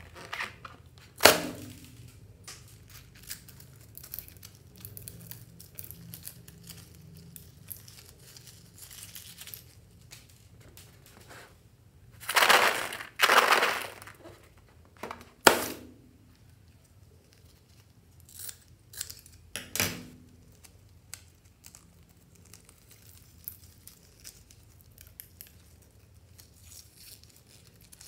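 Rubber balloons being handled and cut with scissors: a sharp click about a second in, two louder rubbing, crinkling rustles about halfway through, then a few more clicks.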